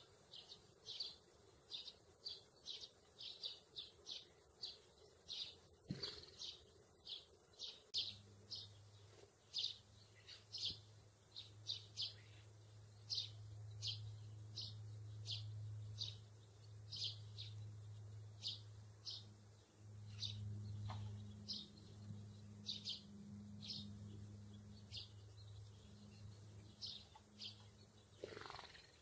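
Sparrows chirping: short, high chirps repeated about twice a second, thinning out in the second half. A low steady hum comes in about a third of the way through.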